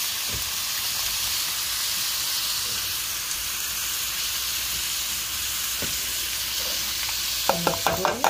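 Ground beef sizzling steadily in hot oil in a stainless steel pot. Near the end comes a quick run of sharp metallic clinks against the pot as chopped onion is tipped in.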